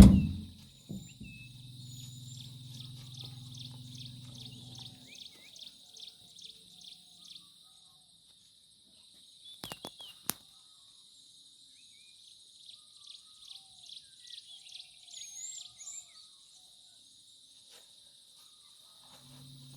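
Outdoor ambience of insects shrilling steadily, with rhythmic pulsing trills and scattered bird chirps. A loud thump right at the start, a low steady hum for the first few seconds and again near the end, and a few sharp clicks about ten seconds in.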